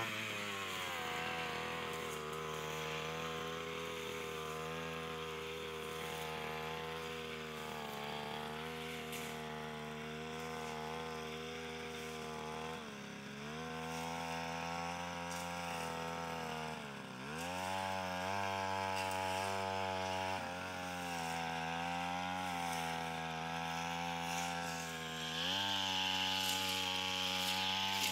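Backpack brush cutter engine running steadily at cutting speed while clearing grass. Its pitch dips briefly twice around the middle and recovers, then rises a little higher near the end.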